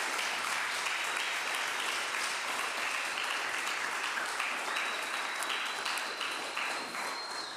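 A room full of audience members applauding steadily, a dense patter of many hands clapping that thins a little near the end.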